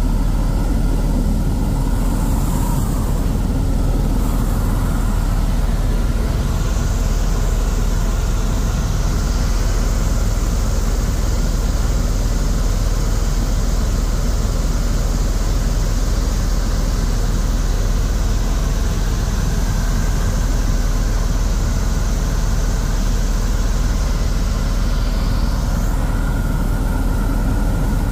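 Helicopter in flight: a steady, loud low rumble of rotor and engine. A higher hiss comes in about six seconds in and fades out near the end.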